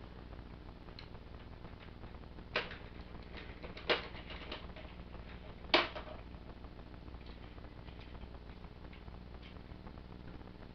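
Hard plastic parts of a Transformers Titans Return Trypticon figure clicking and tapping as they are handled, with three sharper clacks about two and a half, four and six seconds in, over a low steady hum.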